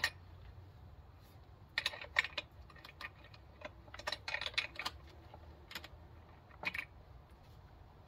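Wrench and small metal parts clicking and clinking while working a fastener on a chainsaw, in short clusters of sharp clicks a second or two apart.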